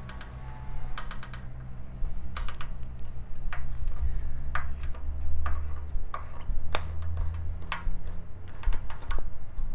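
Irregular sharp clicks and ticks as the knob of a crossbar glue-pull dent puller is twisted to draw a dent out of a motorcycle fuel tank, over a low steady hum.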